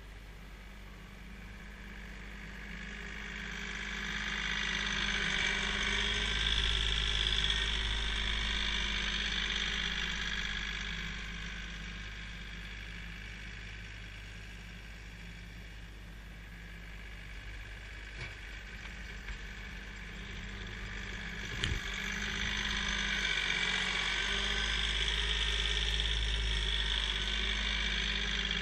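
Kioti CK3510 compact tractor's three-cylinder diesel engine running steadily while the tractor pushes snow. It swells louder twice as the tractor works close by, with one short sharp knock about two-thirds of the way through.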